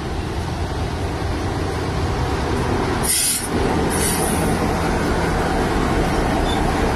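Class 33 diesel-electric locomotive's Sulzer eight-cylinder engine running with a steady low drone as it moves slowly past close by, growing slightly louder. Two brief high-pitched squeals come about three and four seconds in.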